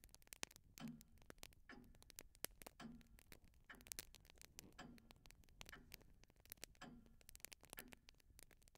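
Faint, steady ticking of a clock, about one tick a second, with fainter irregular clicks between the ticks.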